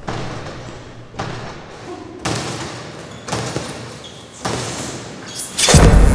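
A series of heavy thuds about once a second, each dying away, then a much louder, deep boom near the end.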